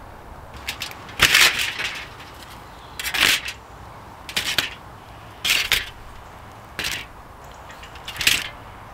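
Crumpled aluminium foil crinkling in short bursts, about six times, as raw prawns are laid onto it by hand.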